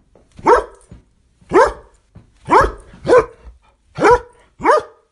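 Dog barking: six sharp barks at an uneven pace, about one every half second to a second.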